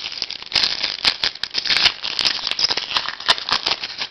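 Foil wrapper of a Topps Chrome football card pack crinkling and crackling with many sharp clicks as it is handled and torn open.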